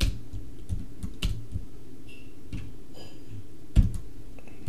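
A few scattered keystrokes on a computer keyboard, the loudest a little under four seconds in, over a steady low hum.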